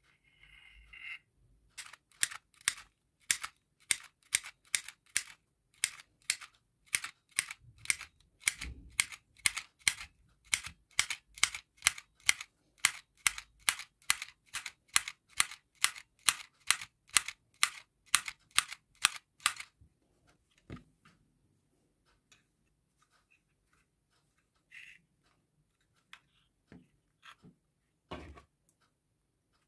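Handheld mini stapler-style sewing machine clacking with each squeeze of its handle, one stitch per click, at a steady pace of about two clicks a second. The clicking stops about twenty seconds in, leaving a few faint scattered clicks.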